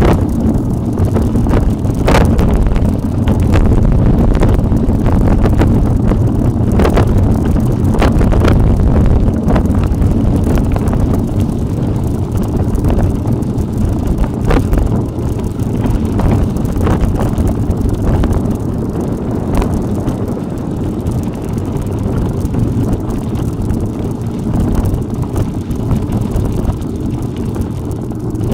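Wind rumbling on the microphone of a camera riding along on a bicycle on an off-road track. Occasional sharp knocks and rattles from the bike jolting over the rough ground.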